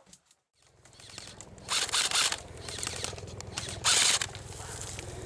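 Airsoft electric guns firing in two short bursts about two seconds apart, a fast mechanical rattle over a steady low hum.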